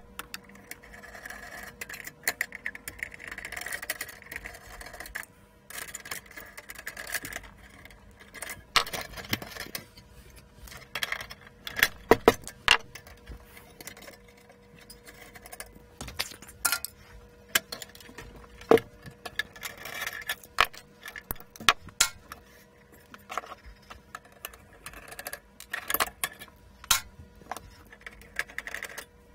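Irregular clicks, taps and short scrapes of tools and small metal and plastic parts being handled while dismantling an electronic unit, the loudest clicks a little before halfway, over a faint steady hum.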